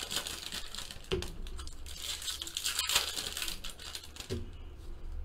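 Plastic wrapper of a pack of baseball cards crinkling and crackling as it is torn open by hand, with a couple of soft knocks from handling the cards.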